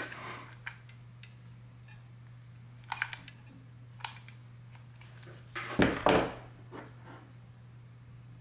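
Light clicks as a glue gun squeezes a blob of melted sealing wax onto a ceramic plate, then a louder, brief clatter a little past halfway as the brass wax seal stamp is handled. A faint steady low hum runs underneath.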